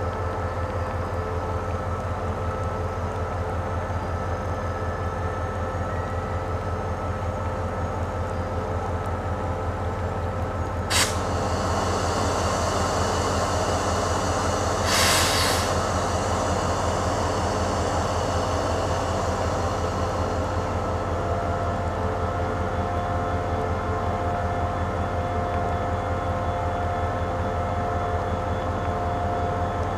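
SRT QSY-class diesel-electric locomotive idling at standstill: a steady low, pulsing engine hum with constant whining tones. A sharp click about eleven seconds in, a hiss lasting about a second some four seconds later, and a new steady tone joining the hum about two-thirds of the way through.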